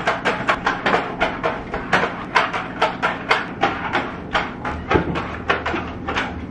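ChomChom pet-hair roller being pushed back and forth over chair seats: quick repeated strokes, about three to four a second, with a dull knock about five seconds in.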